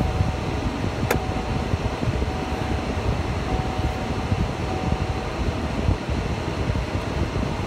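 Steady road and engine rumble inside a moving car, heaviest in the low end. A faint steady whine runs under it for about the first five seconds, and a single sharp click comes about a second in.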